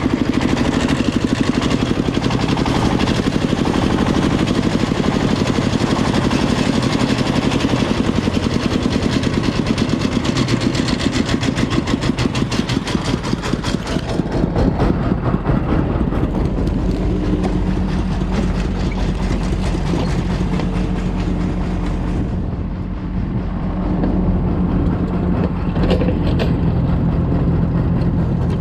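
Diesel engines of a Kobelco excavator and a single-axle công nông farm truck running during loading, loud and continuous. For the first half the engine pulses come fast and even. About halfway through, the sound turns smoother with a steady pitched hum.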